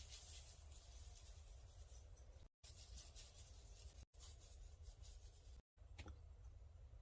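Near silence: a faint low hum and hiss, broken by a few brief total dropouts, with a faint click about six seconds in.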